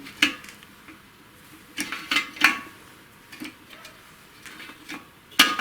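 Sharp, irregular metallic clinks and knocks of steel engine parts as the VAZ 2106's intermediate shaft is turned by hand in its bushings, meshed with the oil-pump drive gear, to test for binding.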